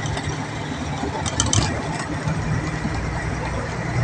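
Steady engine and road noise of a vehicle driving, heard from inside through an open window: a constant low hum under an even rushing noise.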